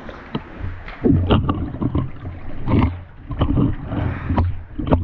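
Water sloshing and splashing in uneven surges as a caver crawls through a shallow cave stream, close to the microphone, with a few small knocks.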